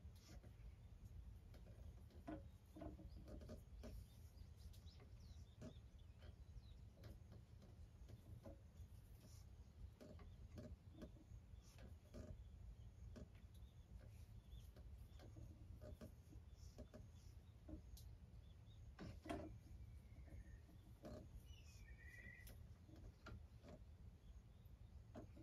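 Near silence: a low steady rumble with faint scattered taps and clicks, and a short high chirping call about twenty seconds in.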